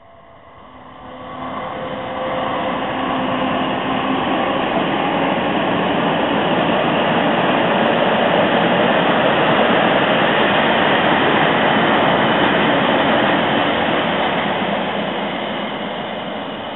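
Freight train passing close by: an electric locomotive followed by car-transporter wagons, wheels rumbling on the rails. A steady hum sounds in the first few seconds as the train comes up. The noise is loudest in the middle and fades near the end as the wagons move away.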